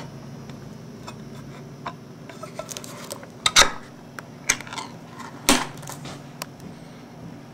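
Pull-tab lid of a steel soup can being pried up and peeled off: a few sharp metallic clicks and pops, the loudest about three and a half and five and a half seconds in.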